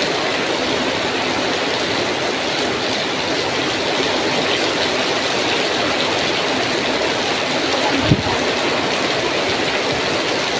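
Heavy rain pouring steadily, a dense even hiss, with a brief low thump about eight seconds in.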